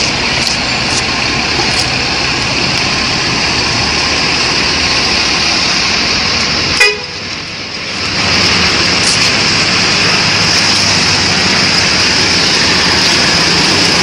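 Loud, steady noise from a tour bus running close by, with a sharp click and a brief dip about seven seconds in, then the noise resumes a little louder.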